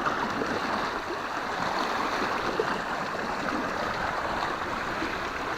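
Steady wash of moving water, an even rushing noise with no distinct events.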